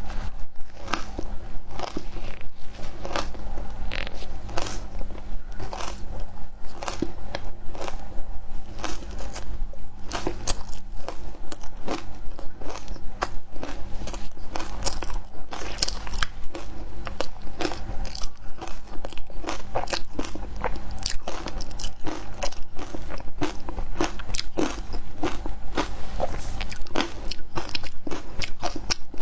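A person biting and chewing frozen matcha ice: dense, irregular crunches, several a second.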